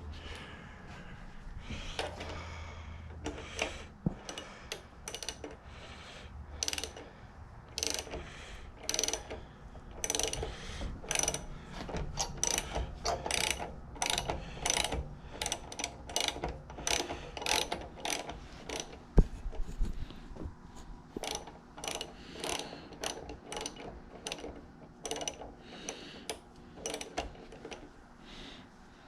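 Irregular metallic clicking, a few clicks a second with short pauses, from a hand tool turning a thread restorer onto a 1/2-inch bolt. The bolt's damaged threads are being chased clean.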